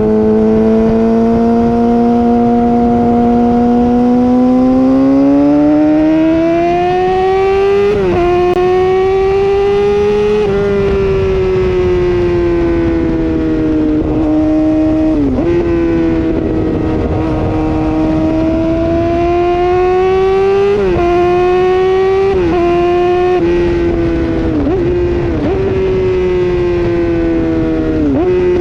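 2013 Yamaha R6's 600 cc inline-four running through an M4 Street Slayer exhaust with the muffler box deleted, very loud. Its pitch climbs and falls as the bike is ridden, with several quick breaks in the tone at gear changes.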